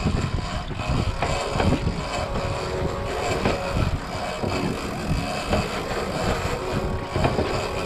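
Twin 300 hp outboard motors running steadily at the stern of a center-console boat, under a constant wash of water and wind noise.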